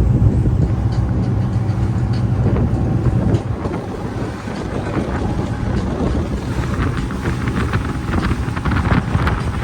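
Charter fishing boat running at speed: a steady engine drone with rushing water and wind buffeting the microphone. The low engine hum drops off about a third of the way in, leaving more wind and water noise.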